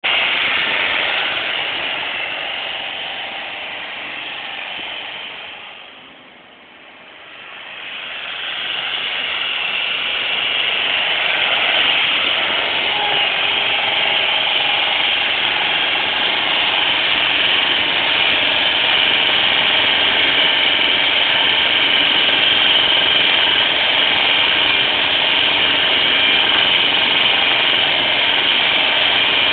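Forklift engine running as the machine drives with a load; the sound fades to its quietest about six to seven seconds in, then rises again and holds steady.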